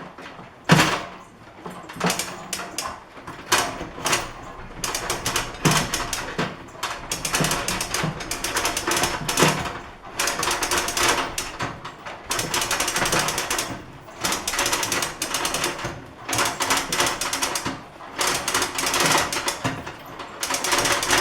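Ratcheting metal clicks in repeated bursts with short pauses between them: a ratchet mechanism being worked stroke by stroke to lift and free a heavy drill press head whose threads are binding.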